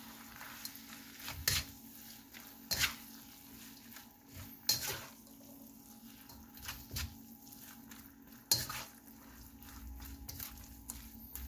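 Spatula scraping and clacking against a wok as stir-fried noodles are tossed, with a handful of louder clacks at irregular intervals.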